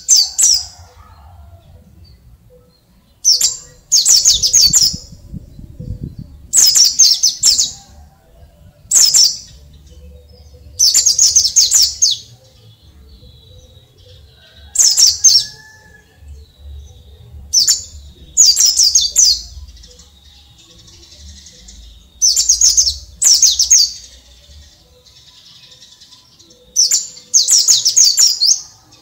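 A caged pleci white-eye of the Bali 'dakun' variety singing its natural 'ngalas' song: loud bursts of rapid, high chirping twitters, one short phrase every two to three seconds.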